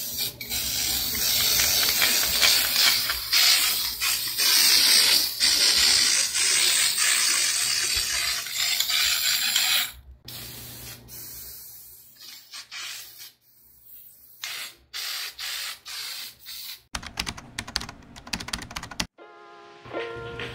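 Aerosol spray can of clear sealant hissing as it is sprayed in long continuous passes over painted foam mat, then in shorter, quieter spurts. Near the end comes a quick run of rapid clicks.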